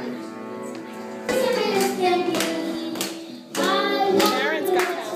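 Bowed cello and double bass holding sustained notes. After about a second this gives way to a child singing into a microphone over keyboard and acoustic guitar accompaniment.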